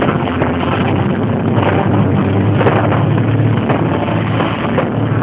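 Fireworks display: a dense, continuous run of bangs and crackling from shells bursting overhead, loud throughout, with the show's accompanying music underneath.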